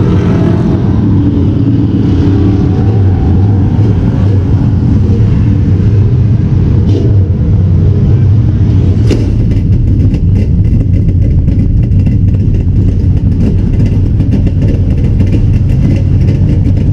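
A dirt modified race car's engine running loudly and steadily. From about halfway in, a rapid run of sharp clicks and ticks rides over it.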